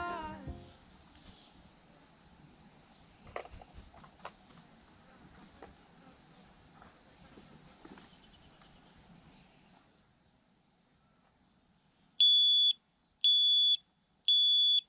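A steady, high-pitched insect drone with a few faint clicks. Near the end come three loud electronic beeps, each about half a second long and about a second apart.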